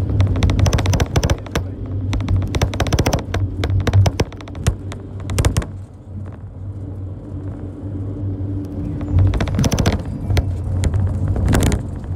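Vehicle in motion: a steady low engine drone with stretches of rapid rattling and knocking that ease off about halfway through, then come back.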